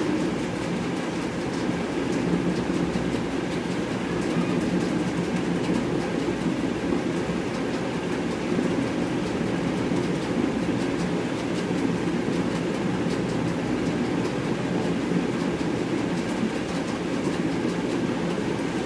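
Steady low mechanical hum and rumble.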